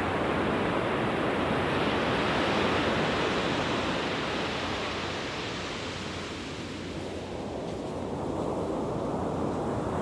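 Ocean surf washing in with wind blowing across the microphone: a steady rushing noise that is loudest over the first few seconds, eases off around six to seven seconds in, then builds again near the end.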